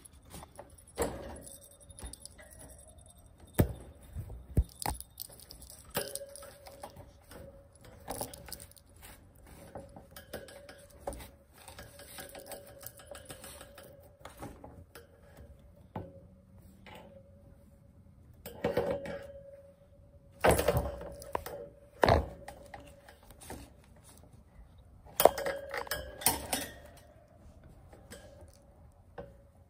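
Irregular clinks, knocks and rattles from a kitten playing with a feather wand toy, with louder clusters of rattling about two-thirds of the way through and again near the end. A faint steady hum runs underneath for much of the time.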